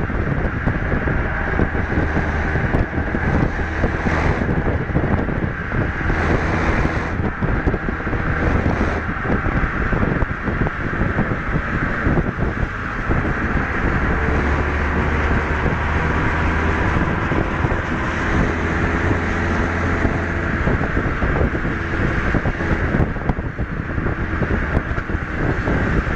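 Renault Mégane RS 250 Cup's 2.0-litre turbocharged four-cylinder engine running at track speed, its note rising and falling with the revs, under heavy wind buffeting on the microphone.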